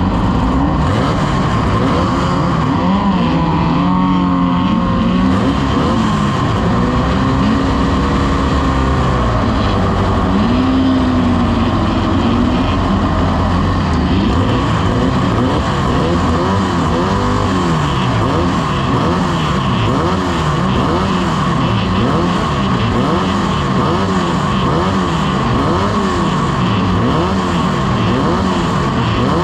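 Several vehicle engines running at once, their overlapping revs rising and falling. Through the second half one engine is revved up and down over and over, a little more than a second apart.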